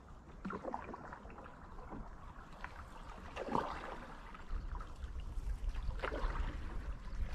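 Faint, irregular paddle strokes and drips in calm creek water as a solo canoe is paddled toward the microphone, with a low rumble growing in the second half.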